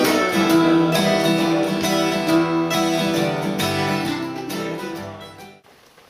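Acoustic guitar music, strummed, fading out and ending about a second before the end.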